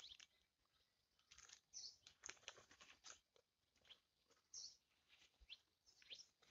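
Near silence with faint, scattered rustles and small clicks of hammock fabric and ropes being handled.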